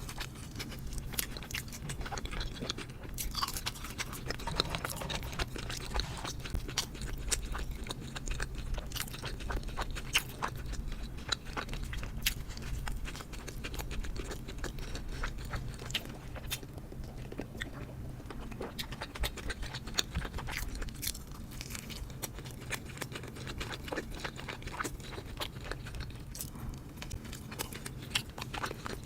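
Close-miked eating: a person biting and chewing food with frequent crunches and mouth clicks, over a steady low hum.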